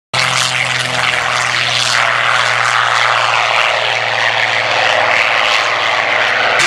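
Supermarine Seafire XVII's Rolls-Royce Griffon V12 engine and propeller running steadily as the fighter flies low past. The sound cuts in suddenly at the start.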